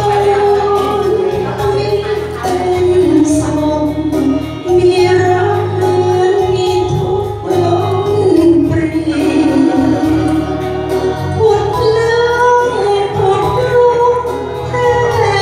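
A woman singing a slow melody into a handheld microphone through a PA speaker, with long held notes, over electronic keyboard accompaniment with a steady bass.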